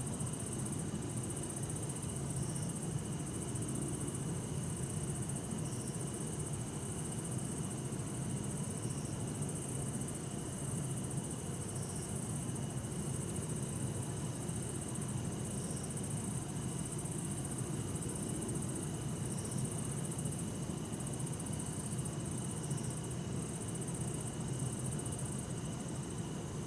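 Night insects, bell crickets among them, trilling steadily and high-pitched, the highest trill pulsing with short breaks every few seconds, over a steady low distant city and traffic rumble.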